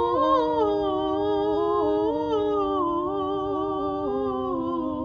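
Voices singing the long drawn-out "Glo-o-o-ria" run of the carol's refrain, held notes stepping down in pitch without a break.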